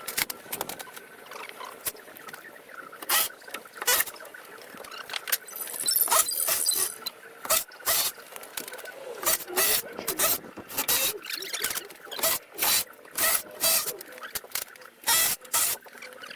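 A series of sharp knocks and taps, irregular at first and then about two a second for a while, with a brief high squeak about six seconds in.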